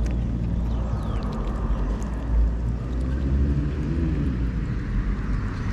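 A steady low rumble throughout, with no rise or fall, with a few faint light ticks above it.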